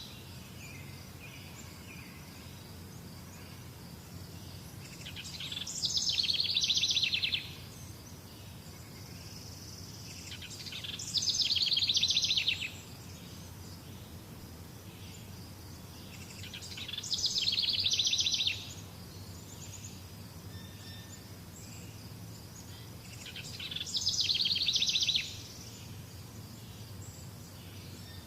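A bird's rapid trill repeated about every six seconds, each phrase about a second and a half long, swelling and then cutting off abruptly, over a faint steady background of natural ambience.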